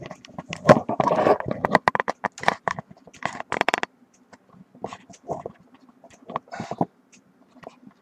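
Handling noise as a camera is moved and set up: a quick run of knocks, rubs and clicks on the body near the microphone in the first four seconds, then scattered lighter ones.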